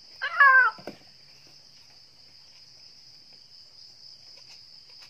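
Steady high-pitched chirring of crickets. A short, loud, falling call cuts across it about half a second in, followed by a small knock.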